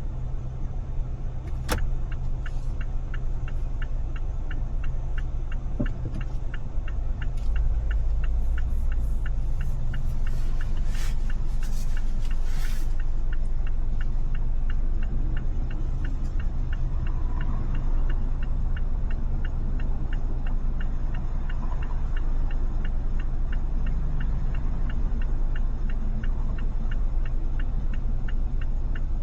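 A car driving in city traffic: a steady low rumble of engine and road noise that grows heavier about seven seconds in as the car pulls away. Over it, an even ticking starts about two seconds in and keeps going. A brief hiss comes near the middle.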